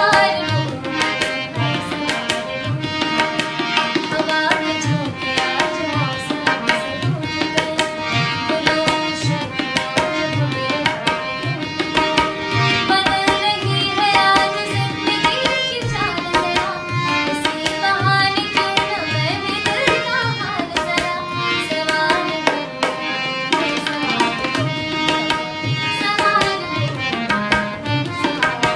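A woman singing an Indian melody over tabla accompaniment that keeps a steady beat.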